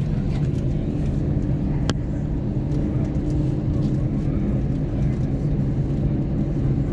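Airliner cabin noise during takeoff: a loud, steady low drone of the jet engines and airflow. There is a single short click about two seconds in.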